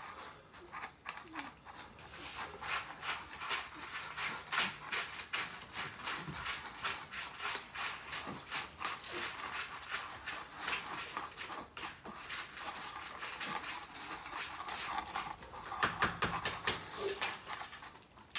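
Several cats eating canned wet food close by: a dense run of quick, wet smacking and chewing clicks.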